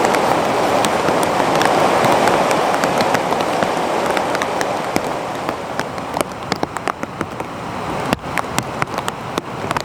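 Rain: a steady rushing hiss that fades over the first half, then separate drops tapping on a surface in scattered, uneven taps.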